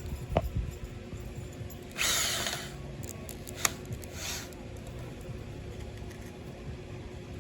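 Electric drill running in two short bursts, the first about two seconds in and louder, the second weaker around four seconds. A knock comes just before and a sharp click between them.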